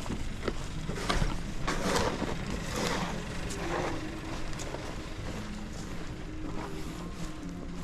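A motor vehicle's engine running with a steady low hum, and a louder rushing swell about one to four seconds in.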